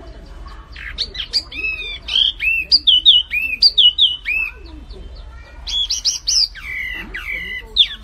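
A small caged songbird likened to a flamboyan, singing in full voice. It gives quick runs of clear whistled notes, each one dropping in pitch, in two phrases split by a short pause near the middle.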